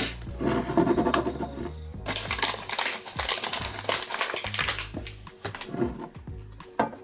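Background music with a steady bass line over kitchen rustling: dry crumble-topping ingredients being handled and poured into a pot, with a dense burst of rustling from about two to five seconds in.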